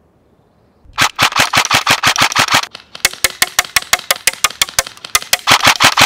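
MK18 airsoft rifle firing long, fast strings of shots, about eight a second, starting about a second in, with two short breaks between strings.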